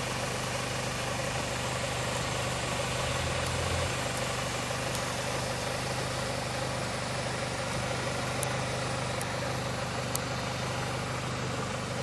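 Car engine idling steadily under an even hiss, with a few faint clicks.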